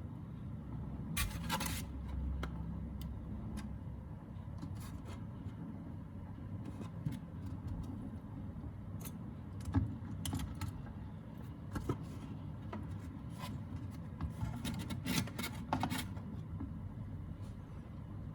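Small hard objects being handled: scattered light clicks and scrapes, busiest around a second in and again near the end, over a steady low rumble.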